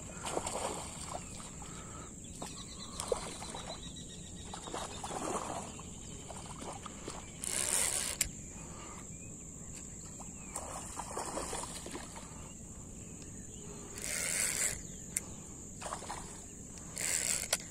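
Outdoor wetland ambience: a steady high-pitched insect drone, broken by three short bursts of noise, one about halfway through, one near three-quarters and one near the end.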